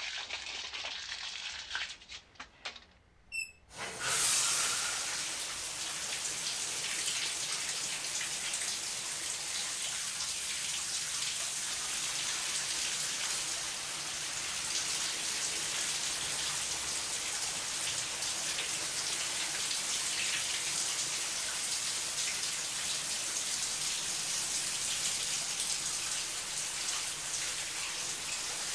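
A few small knocks, then a shower turned on about four seconds in: the spray of water hisses and splashes steadily onto the tiled shower stall.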